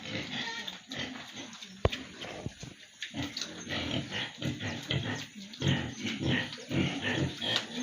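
Domestic pigs grunting, many short low grunts one after another, with a sharp click about two seconds in.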